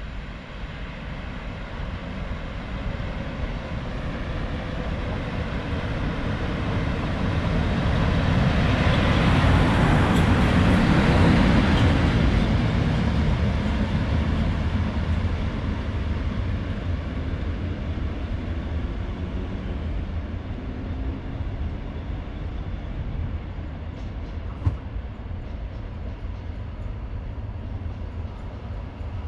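PKP class ET22 (201E) electric locomotive running through the station. The rumble of its wheels and traction equipment builds as it approaches, is loudest as it passes about ten seconds in, then fades as it pulls away, with a single sharp click about three-quarters of the way through.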